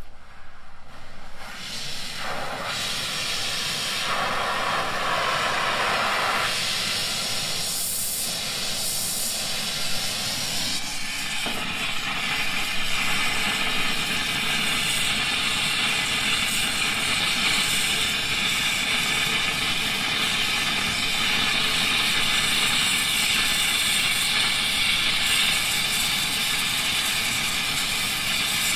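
Hand-held gas torch flame hissing as it melts sterling silver in a melting dish for casting; uneven for the first ten seconds or so, then steady.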